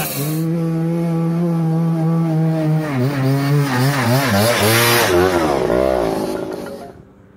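Dirt bike engine running at a steady pitch, then revving up and down repeatedly with the throttle, fading out near the end.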